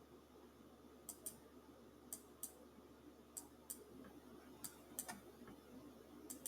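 Near silence in a quiet room, broken by faint sharp clicks that come in pairs, about one pair a second, five pairs in all.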